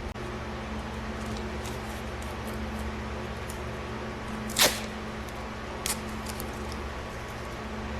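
A steady low hum, with a sharp click a little past halfway and a fainter click about a second later, like small handling noises during work on the car.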